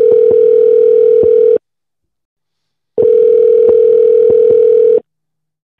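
Telephone ringback tone on an outgoing call: two long steady rings of about two seconds each, separated by a pause of about a second and a half, while the called phone rings unanswered.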